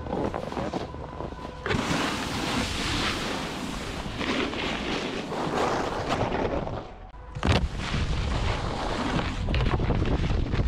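Wind rushing over the action-camera microphone while a snowboard scrapes across packed snow, with a sudden knock about seven and a half seconds in and a sliding scrape after it.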